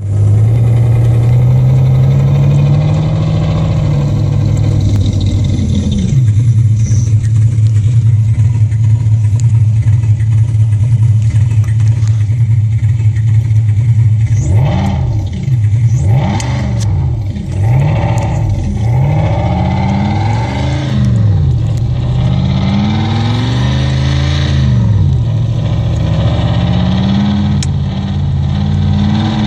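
V8 engine swapped into a VW Passat, running at a raised idle for the first few seconds, then settling to a steady lower idle. From about halfway it is blipped several times, each rev rising and falling back, before returning to idle.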